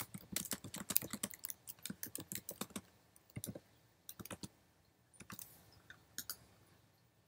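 Typing on a computer keyboard: a quick run of keystrokes for about three seconds, then a few scattered single key presses.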